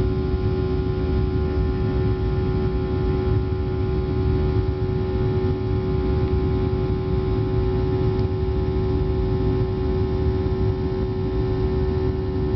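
Boeing 737-800 cabin noise during climb-out: the CFM56-7B turbofan engines and rushing air give a steady drone, a low rumble with a strong steady hum standing out above it.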